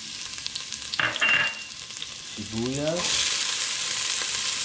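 Minced garlic sizzling in hot oil in a stainless steel stockpot, with a brief clatter about a second in. Near the end chopped onion is tipped in and the sizzle grows louder.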